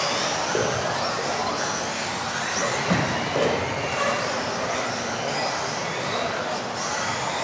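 Several electric RC off-road racing cars running together, their motors whining and rising and falling in pitch as they accelerate and brake. A short sharp knock about three seconds in, like a car hitting the floor or a track marker.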